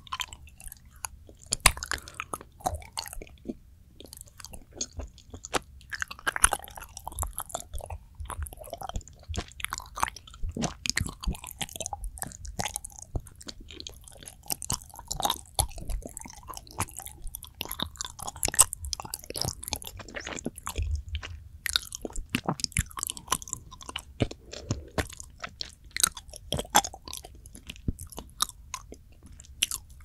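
Close-miked ASMR chewing of soft, fudgy planet-shaped chocolates, which have not been frozen, with many short sticky mouth clicks and smacks coming steadily.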